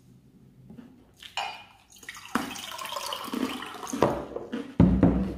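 Water being poured from a jug into a glass, then a dull thump near the end.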